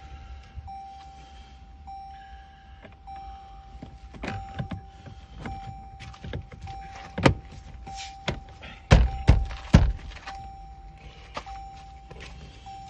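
Clicks and knocks of towing-mirror parts being handled and pressed into place, loudest in a few sharp thunks a little past the middle. Under them runs a steady high tone that breaks off about once a second.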